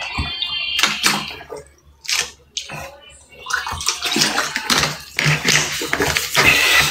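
Water sloshing and splashing inside a handheld plastic bottle, in short bursts at first and then a longer, louder stretch in the second half.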